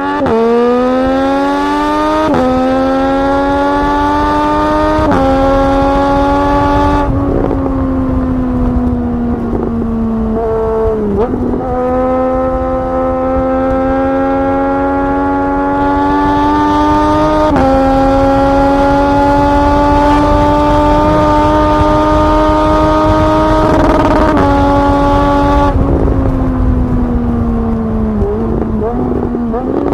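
Triumph Street Triple 765's inline three-cylinder engine pulling hard at the start, with quick upshifts that drop its pitch about 2, 5 and 7 seconds in. It then runs on under a steady throttle through further gear changes and eases off near the end, with wind rush underneath.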